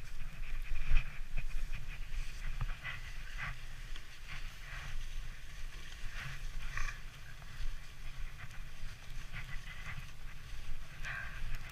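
Sledge runners hissing and scraping over packed snow in short, irregular bursts, over a low steady rumble.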